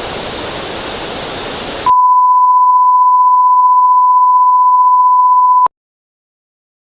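Broadcast static hiss for about two seconds, then a hard cut to a steady, single-pitched beep tone held for nearly four seconds. The tone is louder than the static and stops abruptly.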